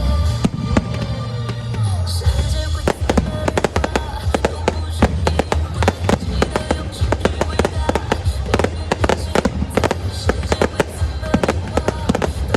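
Fireworks display: aerial shells and crackling bursts bang in quick succession, several a second, becoming denser about two seconds in. Loud music with a steady bass plays underneath.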